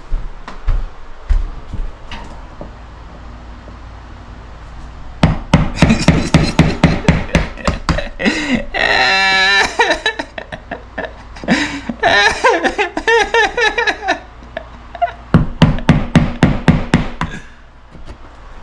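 Hammering: three runs of quick blows, about five strikes a second, each run lasting a couple of seconds.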